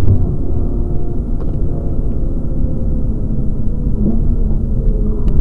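Mazda RX-8's twin-rotor Wankel rotary engine running under load, heard from inside the cabin along with low road and tyre rumble. The engine note sags slowly in pitch, then climbs again near the end as the car is driven round the track.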